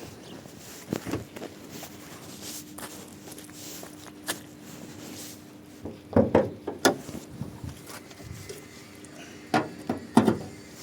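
Scattered clicks and knocks of hand tools and parts being handled, with two short clusters of louder knocks about six and ten seconds in.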